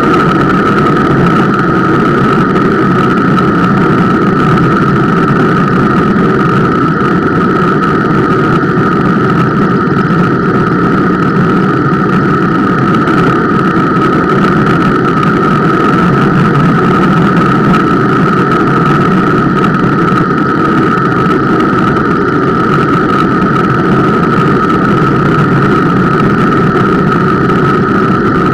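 Bicycle disc brake squealing in a steady high tone under partial braking, which the rider puts down to the Centerlock rotor mounting. Under it runs the loud rushing of semi-metallic brake pads and rolling noise, carried through the frame into the camera mount.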